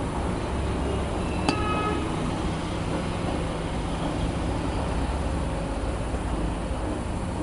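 Steady low rumble of background noise, with a single sharp click about one and a half seconds in, as the plastic sunglasses are handled.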